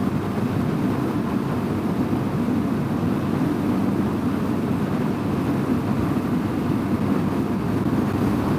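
Honda CRF250L's single-cylinder engine running at road speed under a steady rush of wind on the helmet-mounted microphone.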